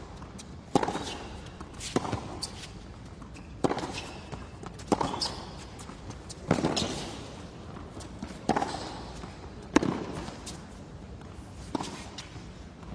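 Tennis rally: a tennis ball struck back and forth with racquets and bouncing on a hard court, giving sharp pops about every one to two seconds.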